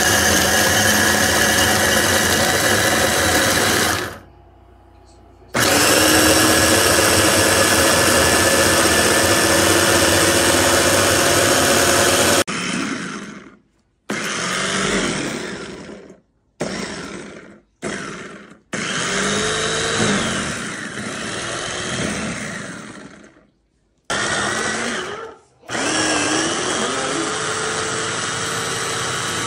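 Ganiza electric food chopper's motor running at full speed, with a brief stop at about four seconds. In the second half it is run in short bursts, starting and stopping several times, its pitch rising as it spins up and falling as it winds down.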